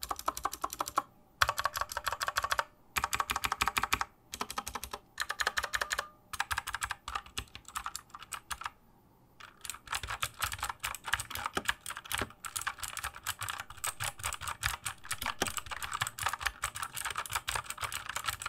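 Typing on a budget 60% mechanical gaming keyboard with Outemu-type switches. Short bursts of keystrokes with brief gaps, then after a pause about nine seconds in, a steady run of fast typing.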